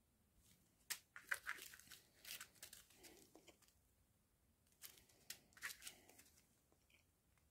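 Small plastic zip-lock bags of round diamond-painting drills crinkling as they are picked up and handled, in two short bouts: one about a second in and another about five seconds in.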